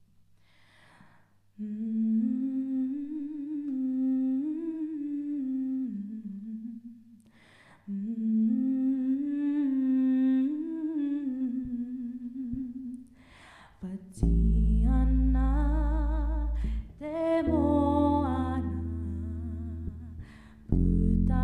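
A solo female voice sings a slow melody in two long phrases, with audible breaths between them. About two-thirds of the way in, bass guitar and more voices come in, singing together.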